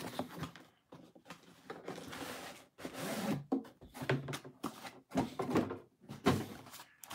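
A cardboard toy box being handled and opened: rustling, scraping and light knocks of cardboard, with the sound cutting out briefly several times.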